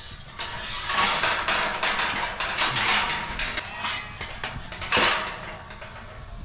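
Metal clattering and rattling, a rapid run of clanks and knocks, loudest about a second in and again about five seconds in.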